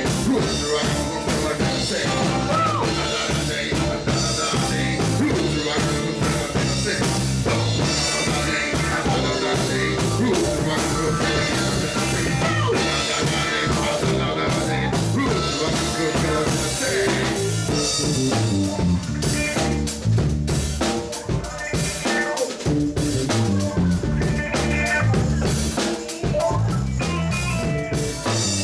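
Live funk/afrobeat band playing an instrumental groove: a drum kit with snare and bass drum over a stepping bass line, with other instruments on top.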